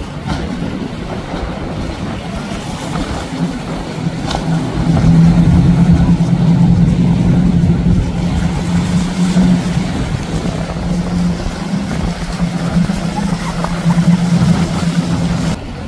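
Outboard motors of a center-console speedboat running at speed as it passes, a steady engine drone that grows louder about four seconds in, over the rushing noise of water and spray.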